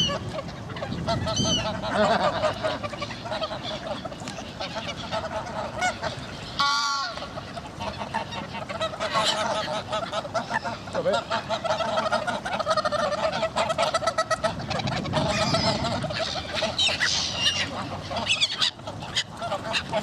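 A flock of geese honking, many calls overlapping into a continuous chorus, with one louder call about six or seven seconds in.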